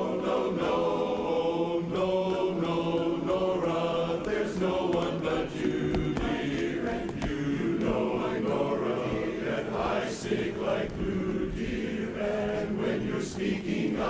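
Large men's barbershop chorus singing a cappella in close harmony, holding and shifting sustained chords with no clear words.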